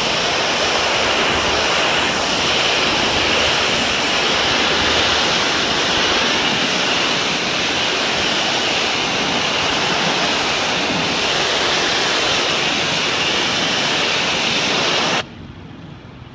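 Pressure washer wand spraying a high-pressure water jet against a concrete wall: a steady, loud hiss that cuts off suddenly near the end.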